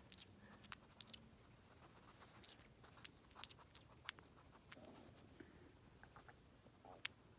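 Faint, irregular wet clicks and smacks of a pet hedgehog chewing and licking food, with one sharper click near the end.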